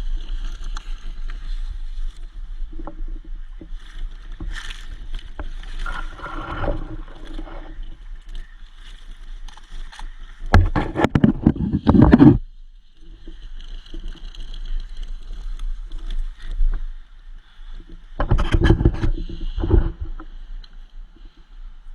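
Close rustling and scraping noise on the microphone, with two louder bursts about ten and eighteen seconds in, over a steady high buzz and a low rumble.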